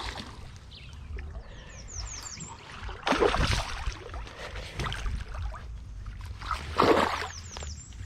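Water splashing in two loud bursts, about three seconds in and again near seven seconds, over a steady low rumble of moving water or wind.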